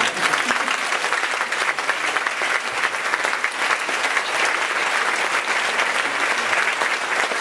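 Applause from the audience and the choir on stage: dense, steady clapping that starts at full strength and keeps going.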